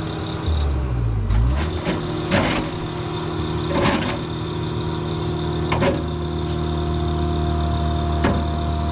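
Diesel engine of a recovery machine (a mini excavator or backhoe) running under load. Its note dips and rises about a second in, then holds steady. Several sharp metal clanks come a second or two apart.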